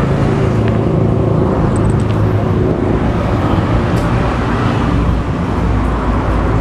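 Steady rumble of road traffic, with the engine hum of passing motor vehicles, and a few light clicks.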